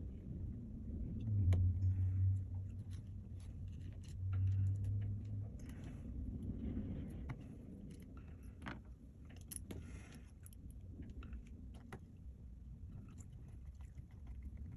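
Light clicks and taps of small laptop parts and a cable being handled during reassembly, with a steady low hum twice, each about a second long.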